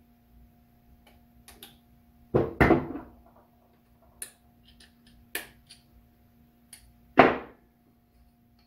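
Metal parts of a Warn manual locking hub clicking and knocking as they are handled and fitted, with snap-ring pliers set down on the bench. Two loud clanks come close together about two and a half seconds in and another just after seven seconds, each ringing briefly, with lighter clicks between. A steady low hum runs underneath.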